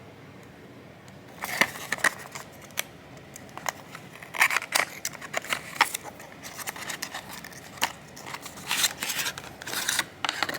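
An irregular run of sharp clicks, snips and crinkles, starting about a second and a half in.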